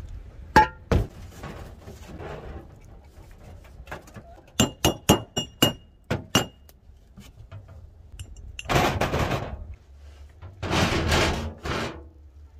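Old rusted steel stovepipe being taken apart by hand: two sharp knocks, then a quick run of about seven ringing metallic taps, then two longer scraping rasps of metal pipe sliding and grating.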